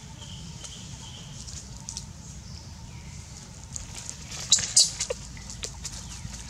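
Dry leaves crackling and rustling as macaques move about in leaf litter, with a short burst of loud, sharp crackles about four and a half seconds in, over a steady low rumble.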